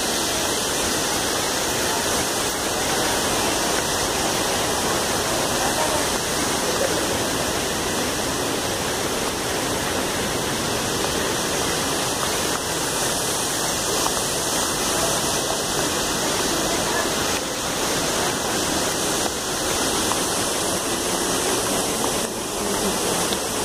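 Waterfall rushing, a steady even noise that holds the same level throughout.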